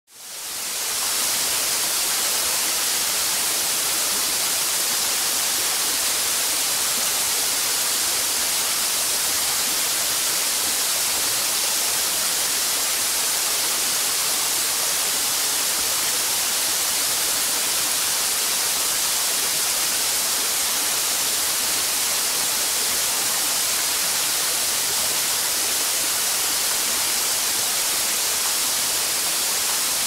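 Waterfall: a steady rush of falling water, mostly a bright high hiss, fading in over about the first second.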